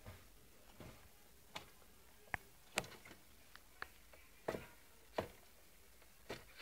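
Savannah monitor hunting crickets in a plastic enclosure: about ten sharp, irregular clicks and taps, several of them loud, as the lizard moves and snaps at the crickets against the plastic floor and walls.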